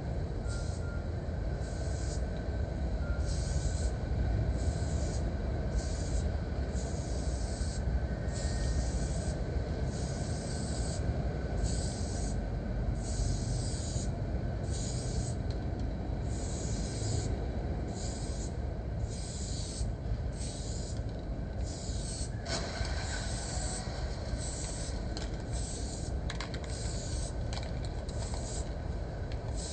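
Aerosol spray-paint can hissing in short repeated bursts, about once a second, over a steady low rumble.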